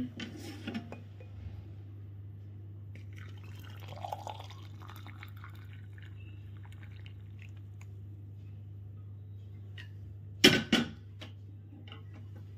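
Kitchen handling sounds: liquid pouring and glass clinking, then two sharp knocks about ten and a half seconds in, over a steady low hum.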